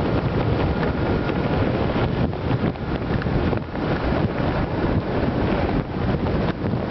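Steady, loud wind noise buffeting the microphone of a camera mounted above a motorcycle's windscreen while the motorcycle is ridden at road speed.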